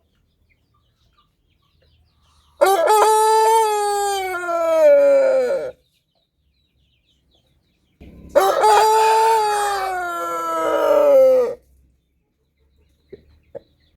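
A rooster crowing twice, each crow one long call of about three seconds that drops in pitch toward its end, with a couple of short faint sounds near the end.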